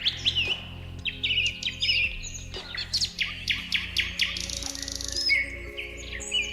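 Several songbirds chirping and whistling, with quick overlapping notes and short gliding whistles, over a soft background music bed of low held tones.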